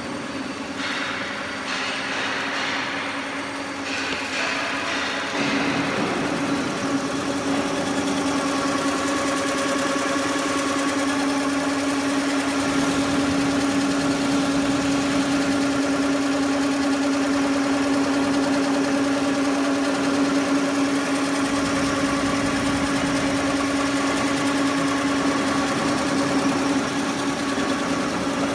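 Multi-needle sleeping bag quilting machine running, a steady mechanical hum with a strong single pitch that grows louder about five seconds in and then holds even.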